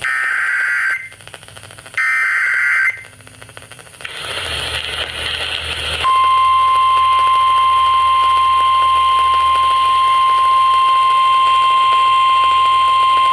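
Emergency Alert System SAME header data: two short buzzing bursts of digital tones about two seconds apart, then a rush of radio hiss. About six seconds in, NOAA Weather Radio's steady 1050 Hz warning alarm tone starts and holds; this tone announces a severe thunderstorm warning broadcast.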